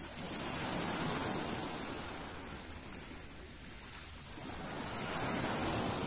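Small sea waves breaking and washing up onto a pebble beach, the surf swelling twice: just after the start and again near the end.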